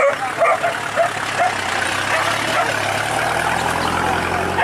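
Hunting dogs yipping and barking in short, high calls while a pickup truck's engine runs, its low hum growing louder in the second half.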